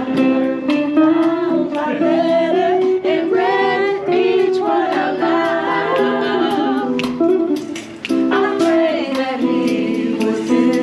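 Live acoustic guitar playing held chords, with a voice singing over it.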